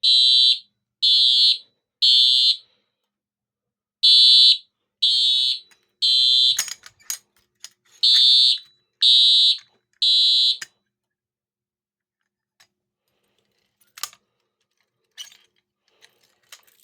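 Simplex TrueAlert 4903-9452 fire alarm horn sounding the code-3 temporal pattern: three loud half-second blasts about a second apart, then a pause, three times over. It stops about ten and a half seconds in, and a few scattered clicks follow.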